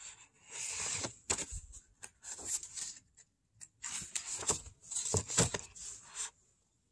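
Picture-book pages being turned and the book handled: paper rustling and sliding in several bursts, with a few soft knocks in between.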